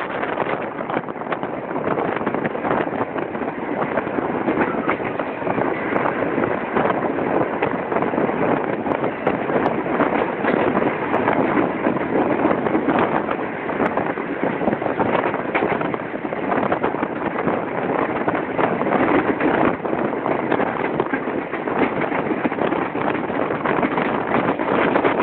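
Passenger train heard from its open coach doorway while running: a steady rush of wheels on rails and wind on the microphone, with scattered clicks and clacks from the wheels over the track.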